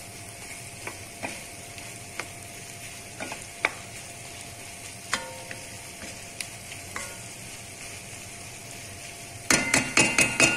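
Sliced hard-boiled eggs in masala sizzling gently in a nonstick pan while a wooden spoon stirs them, knocking against the pan now and then. Near the end comes a quick run of louder knocks.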